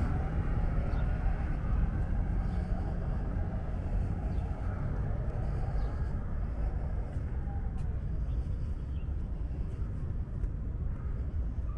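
Steady low rumble of road traffic, with no distinct single event standing out.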